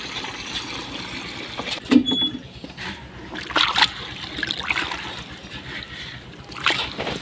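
Water poured from a plastic container into a bucket of dry soil, then a hand squelching and sloshing the wet mud in the bucket with small splashes. This is mud plaster being mixed to re-coat a clay stove.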